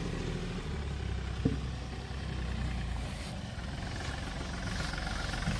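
Mahindra Bolero SUV's engine running steadily at low revs, with one short sharp knock about a second and a half in.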